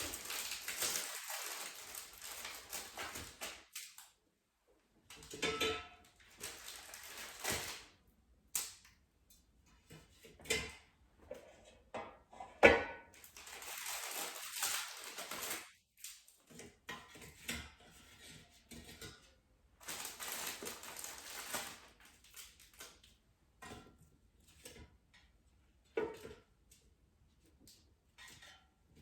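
Frozen spanakopita pastries being taken from their package and set into a metal air fryer basket one by one: bursts of packaging rustling, with short clicks and knocks as the pieces hit the basket, the loudest knock about halfway through.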